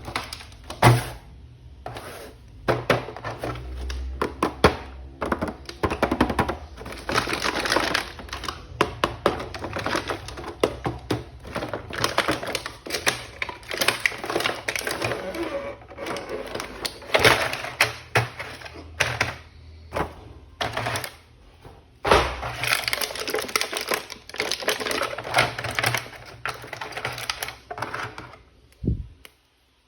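Plastic toy packaging being handled and opened: dense crinkling with many quick clicks and taps, and a single dull thump near the end.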